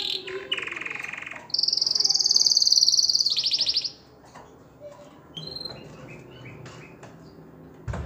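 Male domestic canary singing its courtship song in rapid trills: a rolling trill, then a loud high trill from about a second and a half in that ends near four seconds, followed by softer scattered chirps. A sharp knock comes right at the end.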